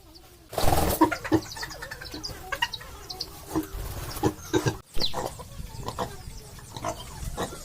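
Farm animals, pigs and chickens, making many short, irregular calls, with a loud burst about half a second in.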